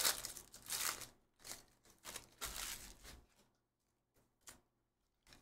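Foil wrapper of a Panini Donruss basketball hobby pack crinkling and tearing open in a few short rustling bursts over the first three seconds, then only a couple of faint ticks.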